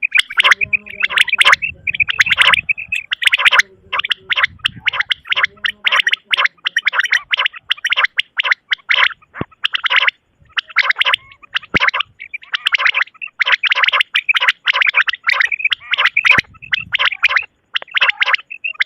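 Quail (batair) calling: dense runs of sharp, rapid notes repeated over and over, broken by brief pauses. A low hum sits underneath for the first few seconds.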